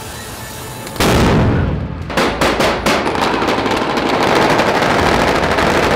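Military gunfire: a sudden loud bang about a second in, then a quick string of rifle shots and continuous dense firing.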